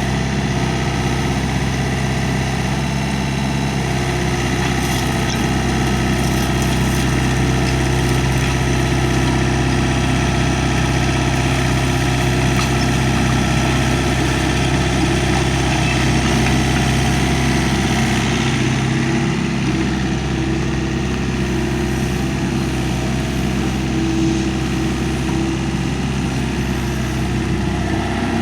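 Diesel engine of a 2006 Hyundai R555-7 excavator running steadily at idle, an even low drone with no revving.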